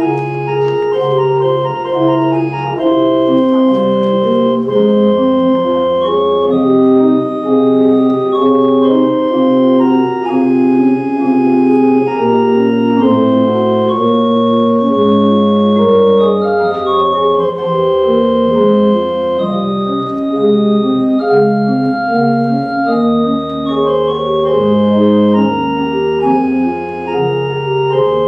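Organ playing a slow piece in held chords, with the bass and melody moving to a new note every second or two.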